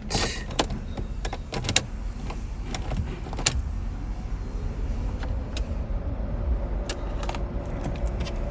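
Car keys jangling and clicking in the ignition of a Honda Civic as the key is turned to the on position, with a string of sharp clicks over the first few seconds. After that comes a steady low hum.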